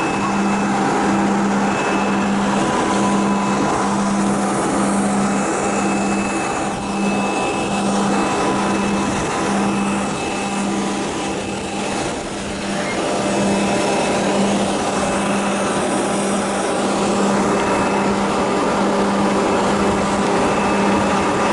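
Ground power unit running steadily beside a parked Antonov An-124, a continuous engine drone with a low hum that pulses about one and a half times a second.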